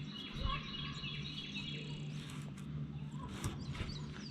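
Birds chirping, a quick run of high chirp notes over the first half, with a few more chirps near the end, over a steady low hum.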